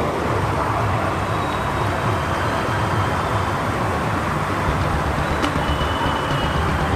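Steady rushing noise of floodwater running through a street, with a low uneven rumble underneath.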